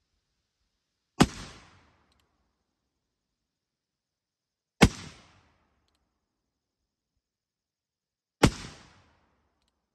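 Three black-powder shots from a Pietta reproduction Remington 1858 New Model Army cap-and-ball revolver, fired about three and a half seconds apart. Each is a sharp crack with a short tail that dies away within about half a second.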